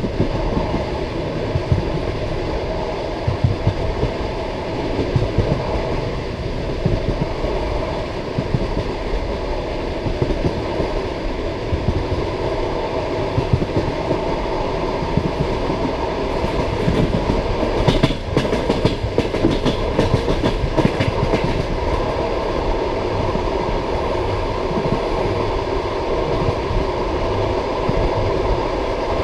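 Passenger carriage wheels running at speed over the rail joints: a steady deep clickety-clack over a rumble, heard from the carriage window. From about 16 to 21 seconds in comes a run of sharper, brighter clacks.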